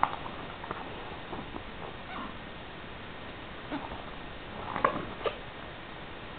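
Pages of a large glossy magazine printed on heavy art paper being turned by hand: a sharp paper flick right at the start, then rustling and crinkling of the stiff pages about four to five seconds in, over a steady hiss.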